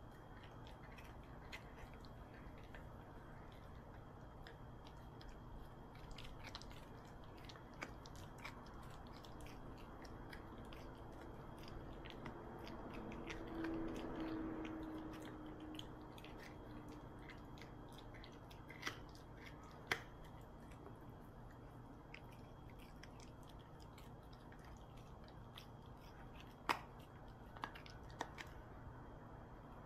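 Toy poodle gnawing a dog chew stick: faint, scattered clicks and crunches of teeth working the chew, with a few sharper clicks in the second half. A brief low drawn-out sound rises and fades near the middle.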